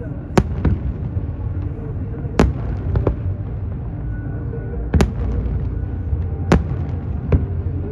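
Fireworks shells bursting over a lake: sharp bangs every second or two, some in quick pairs, over a steady low rumble.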